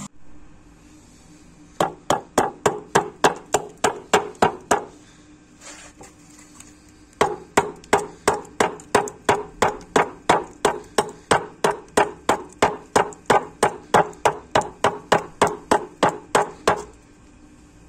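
Freshly sharpened sculpture adze chopping into a block of wood in quick, even strokes of about three to four a second. There is a short run, a pause of about two seconds, then a longer run.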